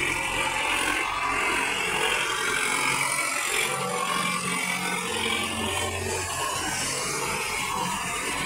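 Tractor's diesel engine running steadily under load while its rear-mounted rotavator churns through flooded mud, puddling the field.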